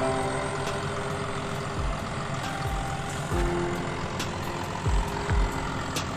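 Heavy crawler crane's diesel engine running under load while it holds a tugboat in the slings, a steady mechanical hum with a few held tones. Several low thumps break through it.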